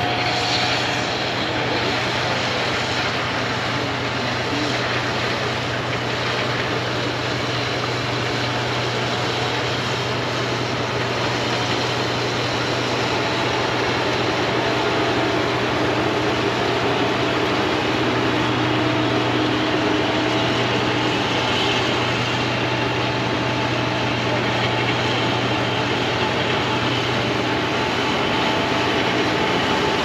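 Arctic Cat ATV's engine running as the machine is ridden, a steady drone with a rushing noise over it.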